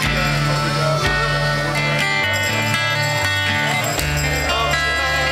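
A band playing music, with a bass line moving from note to note under sustained instrument tones.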